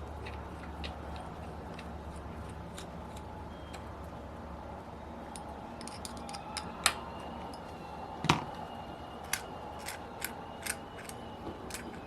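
Light clicks and taps of small metal engine parts and tools being handled during the reassembly of a model four-stroke engine, with two sharper clicks about seven and eight seconds in and a run of quicker clicks after them.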